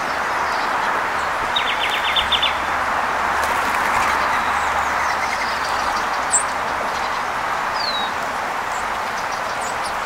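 Wild songbirds calling over a steady rushing background: a quick run of about eight short notes about two seconds in, a sharp high chirp past six seconds, and a short falling whistle near eight seconds.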